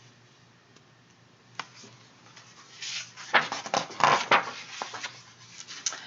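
Paper rustling and several sharp crackles as a page of a picture book is turned, starting about three seconds in after a single light click.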